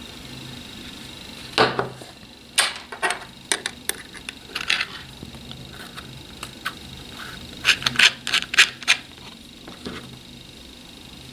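Hard plastic parts of a cordless soldering iron's casing being handled, knocking and rubbing together: a string of irregular clicks and scrapes, with a quick cluster of clicks about eight seconds in.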